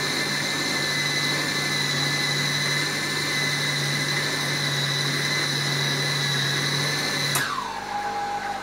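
Electric food processor motor running steadily with a high whine while chopping köfte mixture. About seven seconds in it is switched off and its pitch drops quickly as it winds down.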